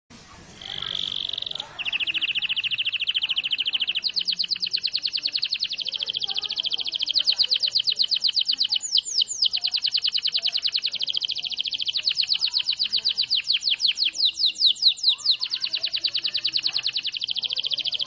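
Domestic canary singing a long rolling trill: very rapid, even, high notes repeated many times a second in an unbroken run, changing pace several times. Quick downward-swept notes break in about nine and fifteen seconds in.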